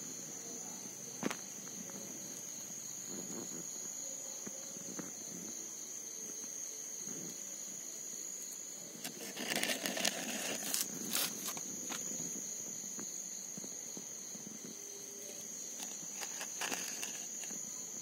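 Crickets trilling steadily, one continuous high-pitched chorus. About halfway through comes a short spell of rustling and sharp clicks, with single clicks about a second in and near the end.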